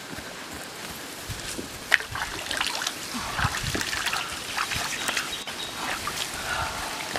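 Water splashing and trickling in a concrete tank as a hand dabbles in it, starting about two seconds in with a sharp click and going on as irregular small splashes.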